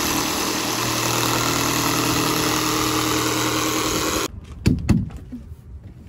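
Cordless jigsaw cutting a curve in a thin plywood wall panel, running steadily for about four seconds and then stopping abruptly. Two sharp knocks follow shortly after.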